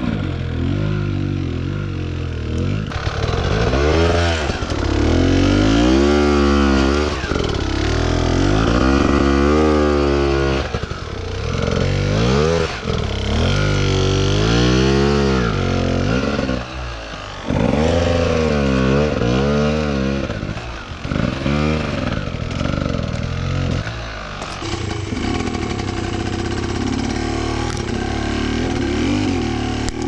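Enduro dirt bike engines revving up and down over and over under load on a steep rocky climb, each rise and fall lasting a second or two. The engine note holds steadier over the last few seconds.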